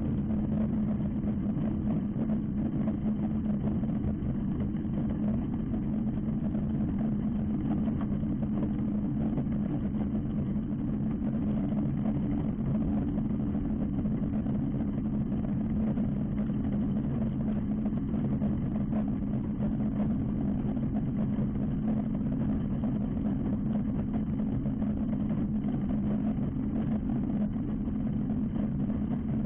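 Microlight aircraft engine idling steadily on the ground, with no change in speed.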